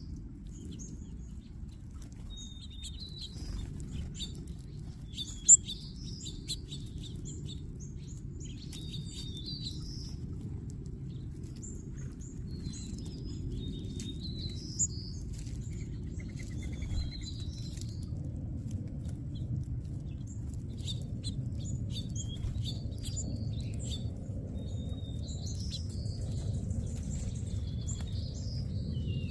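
A mixed flock of small seed-eating birds such as house finches and sparrows chirping busily, with many short high calls overlapping. A steady low rumble runs underneath, and there is one sharp click about five and a half seconds in.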